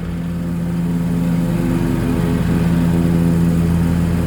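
A lawn mower engine running at a steady speed, growing a little louder over the first few seconds.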